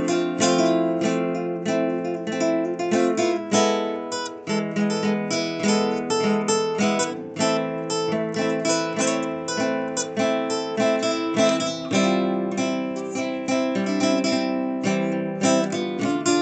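Acoustic guitar strummed and plucked in a steady rhythm of chords.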